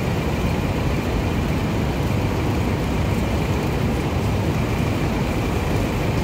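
Steady city street traffic noise: a constant low rumble with a faint steady high tone over it.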